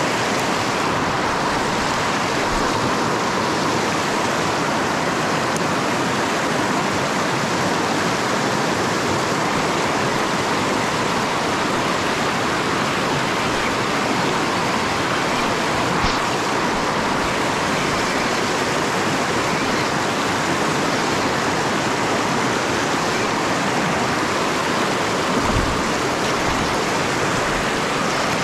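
River water rushing over rocks in shallow rapids: a steady, loud rush of white water.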